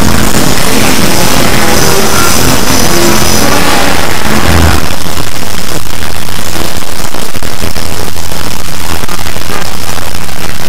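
A loud, distorted jumble of many audio tracks playing over each other at once, with music in the mix. About halfway through it turns into a denser, hiss-like wash.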